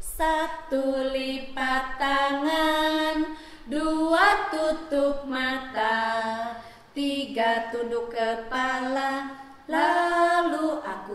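Two women singing a slow song together with no accompaniment, in long held phrases with brief breaks between them.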